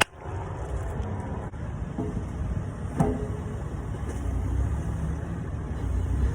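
Bobcat compact excavator engine running steadily at idle, with a single ringing metal clank about three seconds in.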